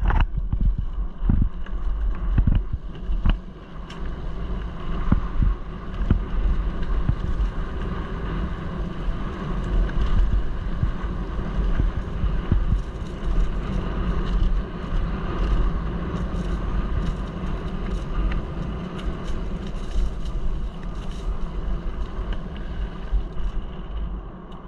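Mountain bike rolling fast down a dirt track: wind buffeting the microphone as a steady rumble, tyre noise over the dirt, and frequent sharp knocks and rattles from the bike over bumps. It gets quieter near the end.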